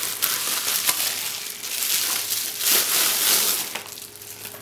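Plastic bubble wrap crinkling and rustling as it is handled and pulled off a lens, louder in bursts around the middle.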